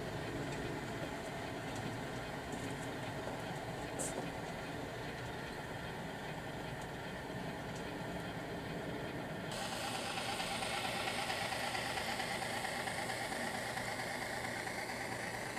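HO-scale model diesel locomotive's engine sound running steadily as the model train rolls, with one sharp click about four seconds in. About nine and a half seconds in the sound changes abruptly to a brighter, hissier mix with a wavering hum.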